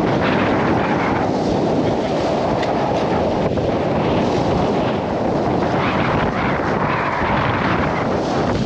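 Strong wind buffeting the microphone over the rush of seas breaking and hissing along a sailboat's hull in rough water, swelling several times as waves pass.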